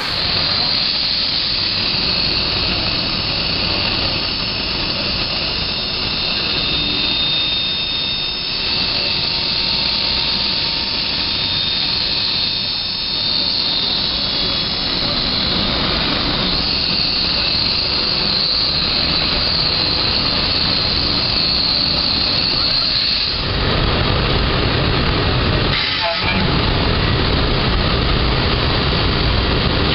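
5-axis gantry CNC router spindle cutting fiberglass reinforced plastic: a steady high whine over continuous cutting noise. About two-thirds of the way through the sound turns lower and heavier, with a brief drop a little later.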